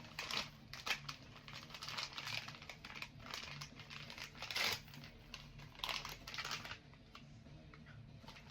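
Packaging crinkling and rustling in irregular bursts as a Hirono blind-box figure is unwrapped by hand, dying down near the end.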